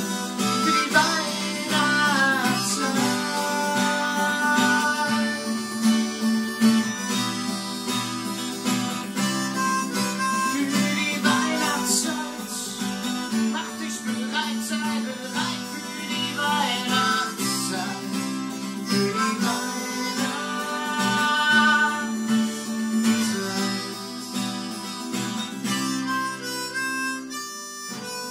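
Harmonica playing a bending melody over acoustic guitar accompaniment. The harmonica stops near the end, leaving the guitar.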